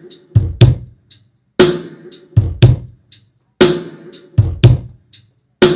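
Drum-heavy music with a steady kick-and-snare beat, about two hits a second, played through a Barclay AS15A active speaker during a low-voltage test at about 150 volts mains; the treble is still there, so the amplifier has not yet gone into protection.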